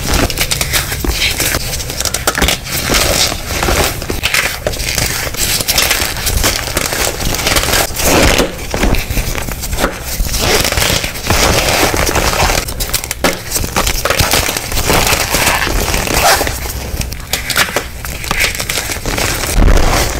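Hands squeezing and crushing dyed gym chalk blocks packed in cornstarch: continuous crunching and crumbling with crackle, and the squeak of compressed cornstarch.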